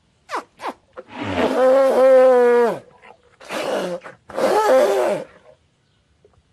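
Wild Asian elephants calling: three loud calls, the first and longest held at one pitch for nearly two seconds before dropping away, then two shorter ones. Two short sharp sounds come just before them.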